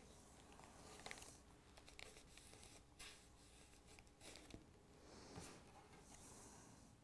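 Near silence with faint paper rustles and light taps scattered through: construction-paper cut-outs being glued with a glue stick and pressed by hand onto a brown paper bag.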